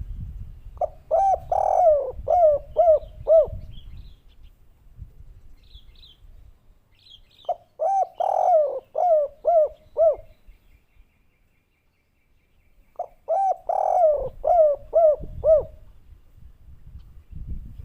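Spotted dove (derkuku) cooing: three phrases, each a quick run of about six rising-and-falling coo notes, a few seconds apart. Faint chirps of small birds are in the background, and there is a low rumble near the start and near the end.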